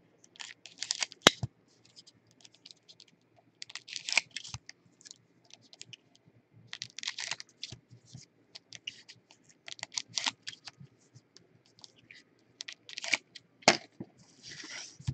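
Foil trading-card pack wrappers and cards being handled by gloved hands: irregular clusters of crisp clicks and crinkles as packs are opened and cards flicked through, with a short tearing hiss near the end.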